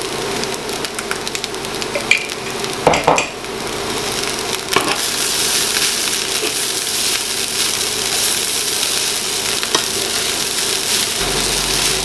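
Rice frying with margarine and shrimp paste in a frying pan, sizzling steadily while a spatula stirs and scrapes through it. The sizzle grows louder about four seconds in, and the spatula knocks against the pan a few times.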